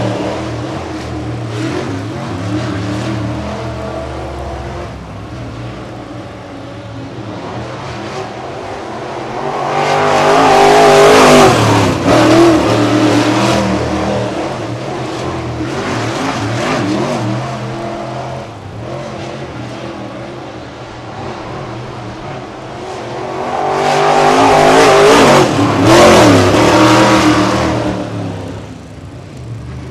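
Dirt late model race car with a 602 crate V8 lapping a dirt oval, its engine revving through the turns. It grows loud as it passes twice, about a third of the way in and again near the end, and drops back between passes.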